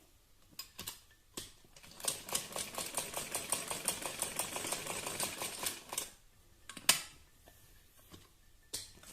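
Sewing machine stitching in a short run of about four seconds of rapid, even ticking. A few light clicks come before it, and one sharper click about a second after it stops.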